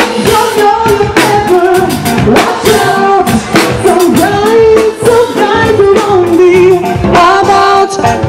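Live band playing a pop song: a lead vocal sings a melody with held notes over drum kit and guitar.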